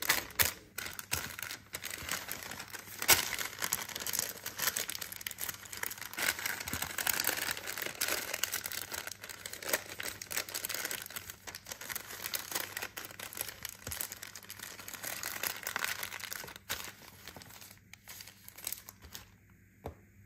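Parchment paper being folded and creased by hand around a banana-leaf parcel, crinkling and rustling with sharp crackles now and then. It dies away near the end.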